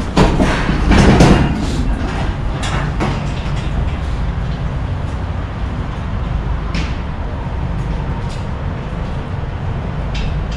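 Manual pallet jack clattering as it is pulled across the wooden floor of an empty box-truck cargo box, loudest in the first two seconds, then a few light knocks. A steady low rumble runs underneath.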